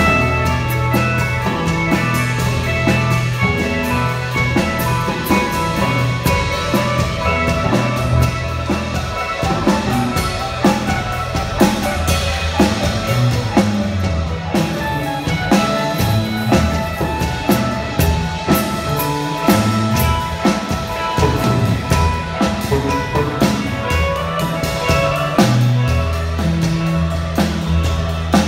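Live rock band playing an instrumental passage: a drum kit with rapid snare and cymbal hits over electric guitar and bass.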